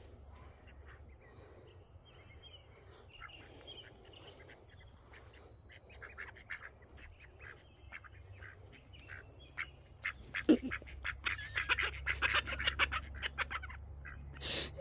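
Ducks chattering with soft quacks as they forage in the grass, faint at first, then busier and louder from about ten seconds in.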